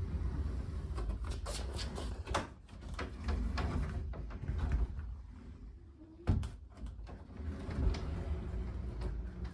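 Sliding door moved along its track, with a low rolling rumble and scattered knocks and clunks; a sharp knock about six seconds in.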